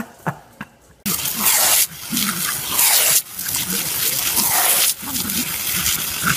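Garden hose spraying a hissing jet of water, broken by a few short gaps, with a dog's voice over it as dogs snap at the spray.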